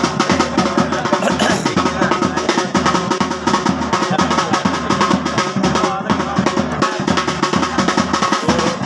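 Dhol, a two-headed barrel drum beaten with sticks, played in a fast, steady rhythm.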